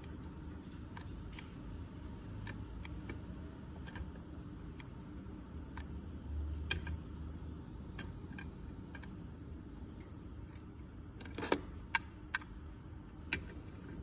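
Buttons on plastic FAAC 868 MHz remote controls being pressed and the remotes handled: a scattered series of small clicks, with a few sharper, louder ones near the end, over a low steady hum.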